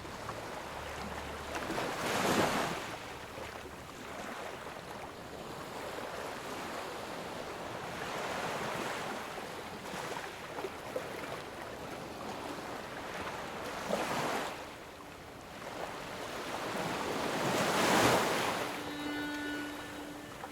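Ocean surf: waves washing in steadily, with bigger waves breaking about two seconds in, around fourteen seconds, and loudest near eighteen seconds.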